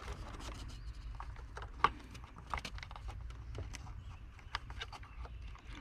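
Small plastic clicks and handling rustle as a twist-lock bulb socket on the back of a gauge cluster is worked by hand, with one sharper click about two seconds in.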